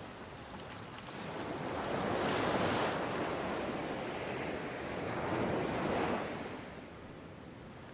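Ocean surf: two waves break and wash in. The first swells about two seconds in with a bright hiss, the second about five seconds in, and the sound then settles back to a lower steady rush.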